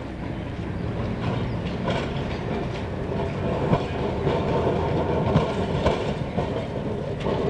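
Electric street tram running along its rails: a steady rumble of wheels on track with scattered clicks and knocks, slowly getting louder.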